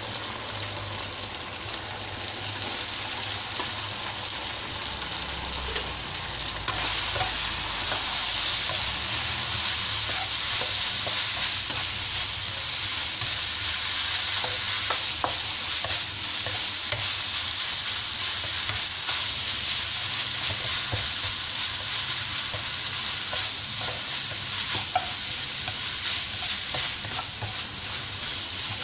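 Rice frying and sizzling in a non-stick wok in dark soy sauce, stirred and tossed with a spatula that scrapes and taps the pan. The sizzle is steady and gets louder about a quarter of the way in.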